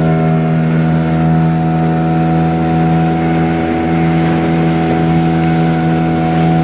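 Boat engine running at a steady speed, an even low drone that holds unchanged throughout.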